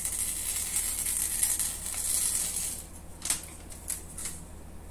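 Knife blade of CPM 125V steel slicing through paper, a steady high rasping hiss for about three seconds, in a sharpness check of the edge after the cutting test. Then a few light clicks.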